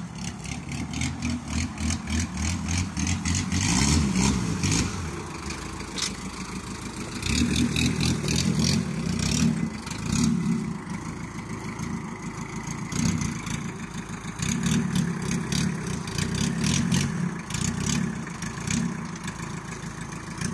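Opel Kadett's engine running and being revved up and down over and over, its note rising and falling every few seconds between short spells of idle.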